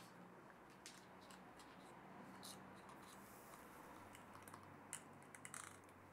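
Near silence with a few faint, sharp clicks and ticks from handling a needle oiler and the steel cross slide of an antique lathe, over a faint low hum that gets stronger about four seconds in.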